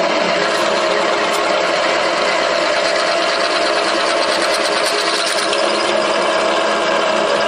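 Clausing 1640 drill press running with its bit cutting through a steel plate: a steady machine hum made of several held tones. About three seconds in, a brighter, hissing cutting noise rises for a couple of seconds, then eases.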